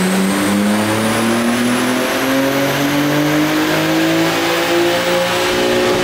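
BMW G80 M3's twin-turbo 3.0-litre S58 inline-six at full throttle on a chassis dyno, its note rising steadily in pitch through a gear, with a faint high whine climbing alongside. This is a baseline pull on the stock tune, and the pull ends near the close.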